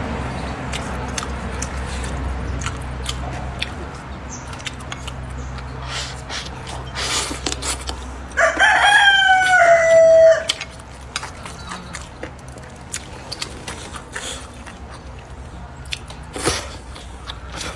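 A rooster crowing once, about halfway through, a call of about two seconds that dips in pitch and then holds level. Faint scattered clicks and a low steady hum lie underneath.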